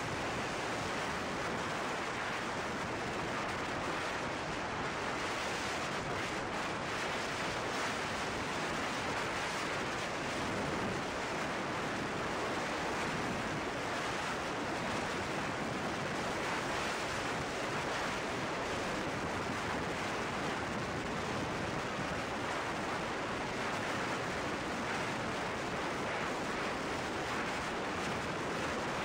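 Steady rush of wind on the microphone of a motorcycle-mounted camera riding at highway speed, an even roar with no distinct engine note or other events.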